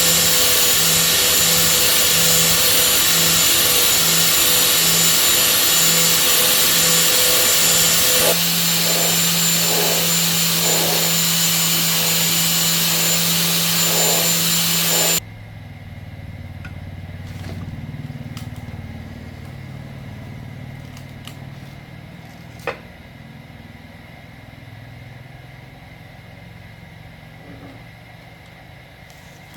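A loud motor-driven machine runs steadily for about fifteen seconds and then cuts off abruptly. A much quieter low engine-like running sound is left, with a few scattered clicks and a single sharp knock near the end.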